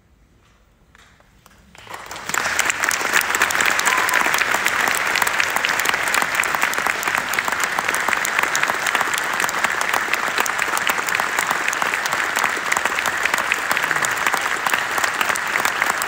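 A quiet moment, then about two seconds in a concert audience starts applauding, and the applause runs on loud and steady.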